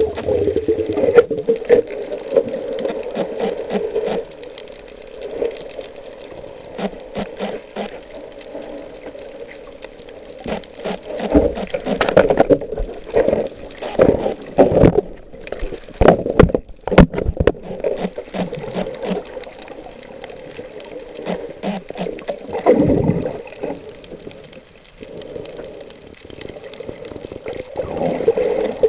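Underwater sound through a camera's housing: a dense crackle of clicks and knocks with muffled water noise, busiest in the middle.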